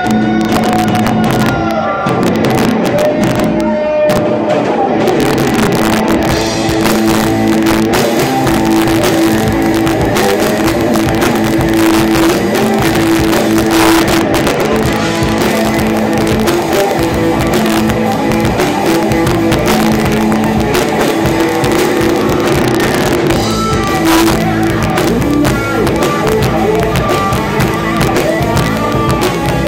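Live rock band playing loud, with electric guitars, bass guitar and drums.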